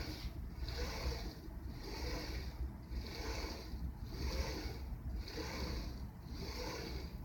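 Lathe axis servo motors driving the slides through a sine-wave trajectory, their whine rising and falling about once a second as the axis speeds up and slows down.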